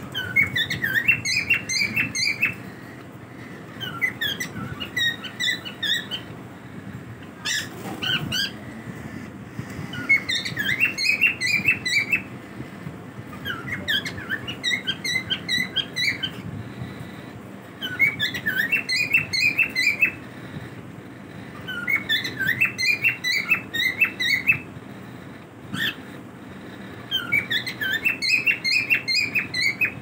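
Cockatiels chirping in repeated bouts of quick, high notes, each bout about two seconds long and coming every few seconds, over a steady low background noise. A short rustle breaks in about eight seconds in.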